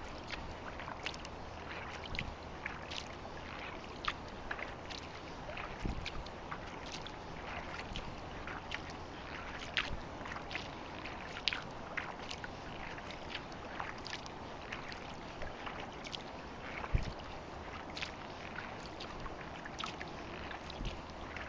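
Small ripples lapping against a kayak's hull: many short, irregular splashes and trickles over a steady low rush of wind and water, with a couple of dull knocks, the loudest about three-quarters of the way through.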